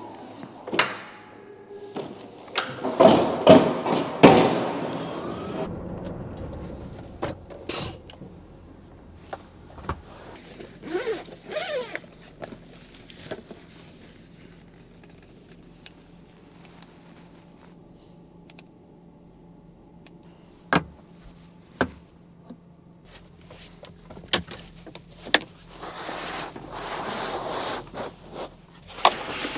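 Thumps, knocks, clicks and rustling as bags and other things are handled and set down inside a truck cab. The loudest run of thumps comes about three to four seconds in, and a faint steady low hum sets in a couple of seconds later.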